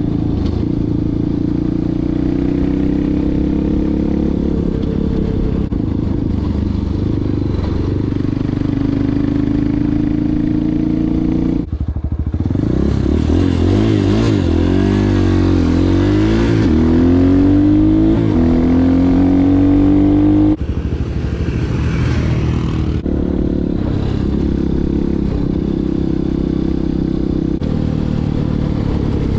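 250cc dirt bike engine running under way, its pitch rising and falling with the throttle, with wind rush over it. About twelve seconds in, the engine note sweeps and climbs as the bike accelerates and is a little louder, before going back to steadier running after about eight seconds.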